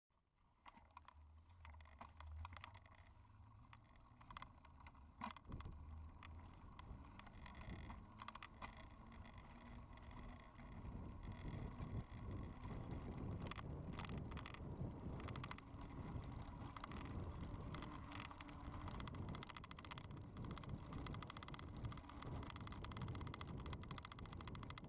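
Bicycle rolling along a paved path: a steady rumble of tyres and wind with scattered rattles and clicks, getting louder about halfway through.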